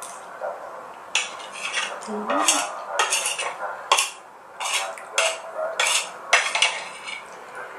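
Metal spoon scraping and clinking against a ceramic plate in a quick series of short strokes, gathering up the last of the sauce and noodles.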